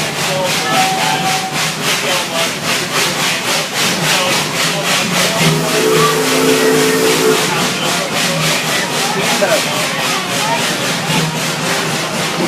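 Amusement-park railroad train running, with a steady rhythmic beat of about three to four noisy strokes a second.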